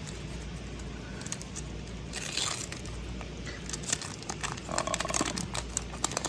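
Wax-paper wrapper of a 1987 Topps baseball card pack crinkling and tearing as it is opened, in a run of crackles from about two seconds in.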